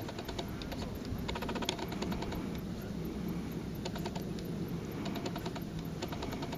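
Handling noise from a handheld camera: short bursts of rapid small clicks, about a second and a half in and again around four seconds, over a low steady rumble.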